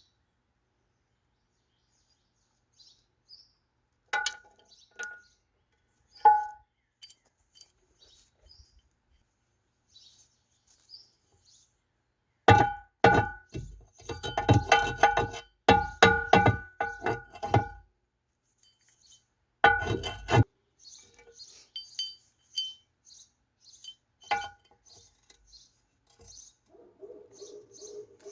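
Ringing metal-on-metal clinks as teeth are fitted onto a mini excavator's steel bucket. There are a few single strikes, then a rapid run of them for about five seconds in the middle, then a couple more.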